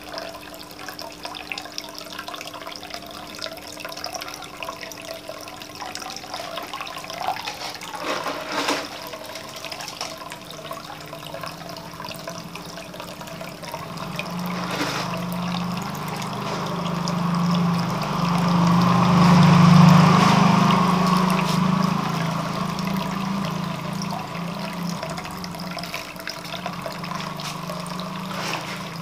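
Water running and trickling over a steady low hum, swelling into a louder rush of water from about halfway, strongest about two-thirds of the way through, then easing off.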